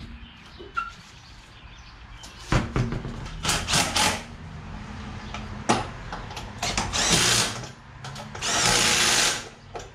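Cordless power drill run in several short bursts, spinning lug nuts on as a car's front wheel is mounted; the last two bursts last about a second each.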